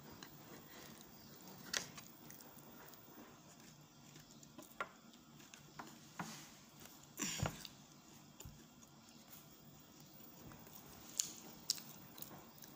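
Quiet eating sounds as banana cake is cut and eaten: scattered soft clicks and knocks from a knife and plate, and mouth sounds near the end as a piece is eaten. The loudest is a single knock a little past the middle.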